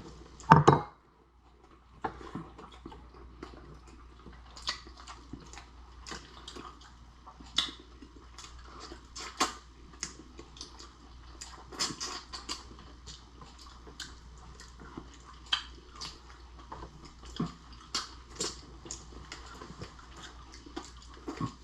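A person eating shrimp and lobster close to the microphone: irregular wet chewing and smacking clicks throughout. A short, louder knock comes about half a second in.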